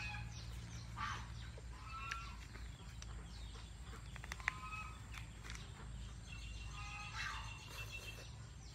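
Farmyard fowl calling now and then in the background: a few short calls about a second in, about two seconds in and again around seven seconds.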